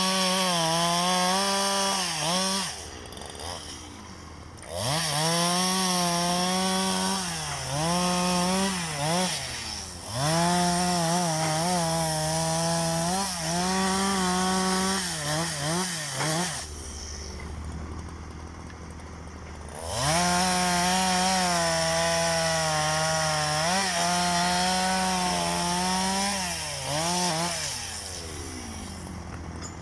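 Two-stroke chainsaw revved to full throttle in four long bursts, its pitch sagging and wavering as it cuts into wood, dropping back toward idle between cuts. A low steady engine drone runs underneath.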